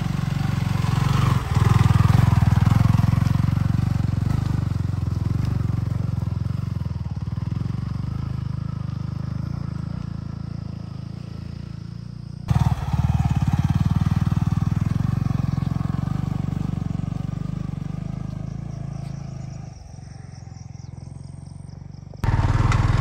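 Motorcycle engine running on a rough off-road track, its low pulsing note slowly fading, then jumping back up abruptly about halfway through and again near the end.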